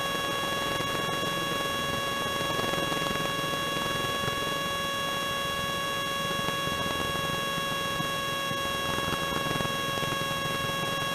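Robin DR400 light aircraft's piston engine and propeller droning steadily in level cruise, heard inside the cockpit, with a few steady whining tones over the drone.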